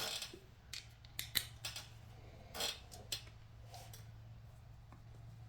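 Irregular light metallic clicks and clinks of hand tools being handled, a 13 mm socket and wrench being fetched and fitted for the oil pump bolts, over a low steady hum.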